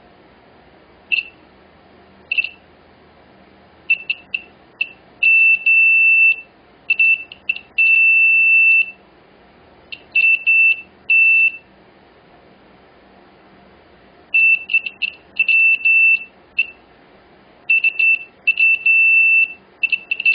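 Multimeter continuity beeper sounding as the probes touch the logic board's filters: a single high tone in irregular short chirps and longer held beeps, each beep showing an unbroken path, the filters testing good.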